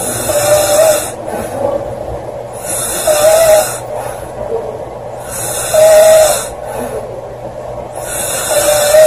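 A woman snoring loudly: four snores about three seconds apart, each a hissing rush of breath with a short buzzing tone.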